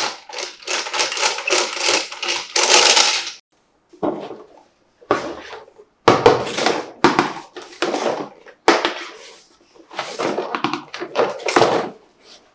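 Plastic toy parts and packaging being handled: bursts of rustling with clicks and light knocks, stopping and starting several times.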